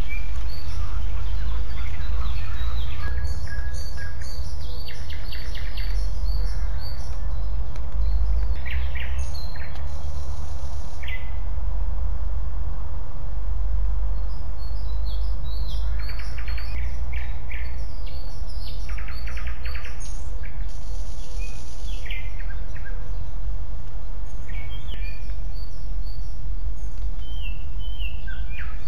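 Small birds chirping and singing, many short calls and trills following one another, over a steady low rumble.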